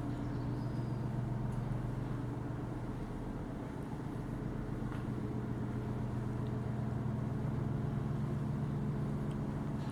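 An engine running steadily at an even speed, a low hum that grows slightly louder near the end.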